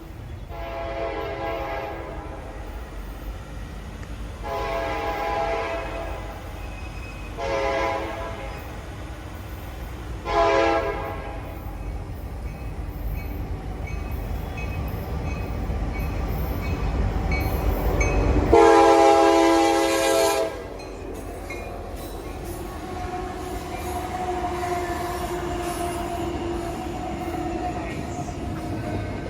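CSX locomotive horn sounding the grade-crossing signal, two long blasts, a short and a long, as the engine's rumble grows closer. A loudest long blast comes about two-thirds through as the locomotive reaches the crossing, then the train's cars roll by with a faint steady squeal.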